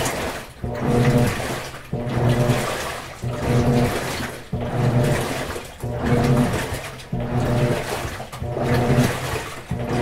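GE Spacemaker WSLS1100 washing machine agitating: the motor hums and the water swishes in regular strokes, about one a second, each starting suddenly and fading before the next.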